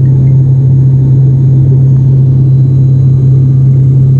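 Turboprop airliner's engine and propeller drone heard inside the passenger cabin while climbing after take-off: a loud, steady low hum over a rumble.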